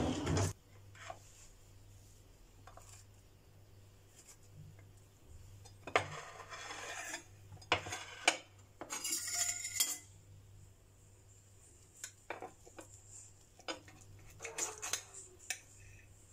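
Metal fork and knife clinking and scraping on a china plate while cutting into a cheese-topped potato galette, in several short bursts with pauses between.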